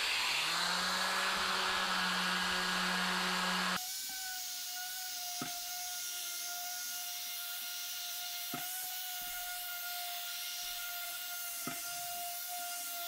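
Random orbital sander sanding a particle board and plywood countertop blank, with a dust-extraction vacuum hose attached. The sander spins up about half a second in over the vacuum's hiss; after a sudden drop in level about four seconds in, it runs on as a steady whine with a few light taps.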